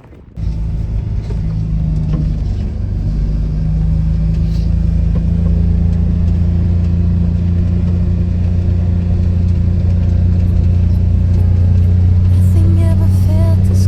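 A car or truck engine and road noise while driving: a steady low drone that starts suddenly and grows a little louder over the first few seconds.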